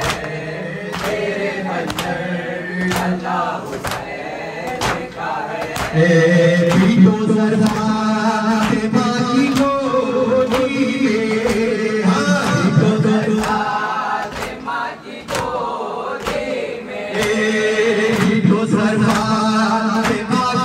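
Men chanting a nauha (Shia lament) in unison, with a steady beat of sharp strikes a little faster than one a second, typical of matam, hands beating the chest in time. About six seconds in, the chanting gets louder and higher as more voices join.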